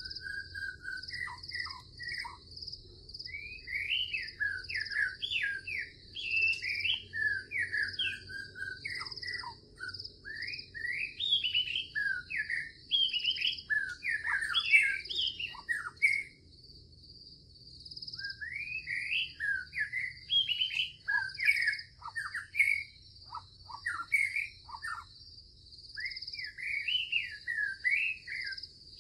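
Songbirds singing in short phrases that rise and fall, with brief pauses between them, over a steady high-pitched trill of insects.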